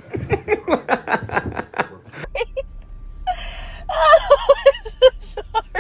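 Quick breathy, gasping bursts of a person's laughter, about seven a second for two seconds; after a break, a second laugh in short, evenly spaced pulses over a low steady hum inside a car.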